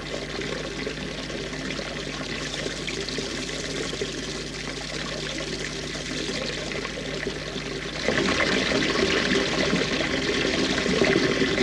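Water pouring and splashing into a trout-farm pond, a steady rushing that grows louder about eight seconds in.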